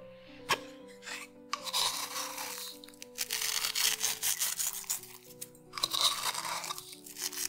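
Coarse salt rubbed between the fingers and sprinkled over chickpeas and raw eggs in a glass bowl: three bursts of rubbing, each about a second long, over background music. A short tap about half a second in.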